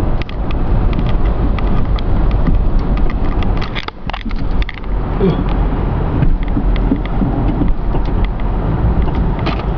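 Snow plow truck running, heard from inside the cab: a steady low engine rumble with irregular clicking and rattling, and a brief drop in level about four seconds in.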